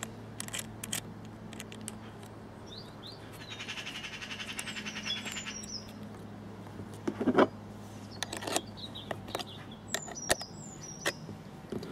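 Small birds chirping and twittering, with a trill in the middle, over sharp metallic clicks and taps from a spanner and a battery terminal clamp being tightened onto a cable; the loudest tap comes about seven seconds in. A faint steady hum sits underneath.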